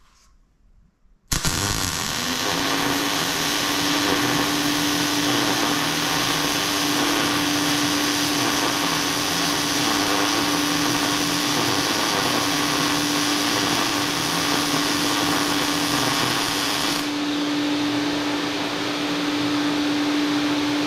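A wire-feed welding arc sizzling from about a second in until about four seconds before the end. About a second after the arc strikes, a Lincoln Electric Mini Fume X-tractor, set to high, switches itself on as it senses current in the torch cable, and runs with a steady hum that carries on after the welding stops.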